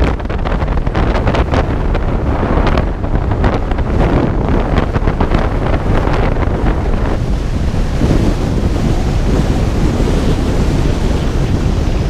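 Wind buffeting the microphone over a low rumble, as in a car driving with its windows open: a loud, steady rushing noise.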